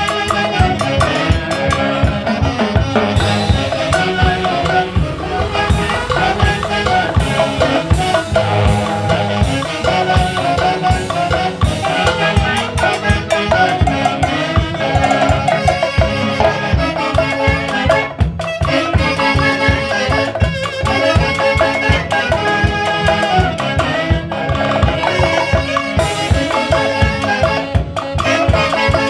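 A live orchestra playing a dance tune, with a steady, even drum beat under the melody instruments.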